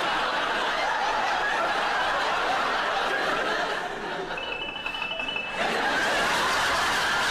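Studio audience laughing. The laughter thins out about four seconds in, a brief high tone sounds, and the laughter picks up again about a second and a half later.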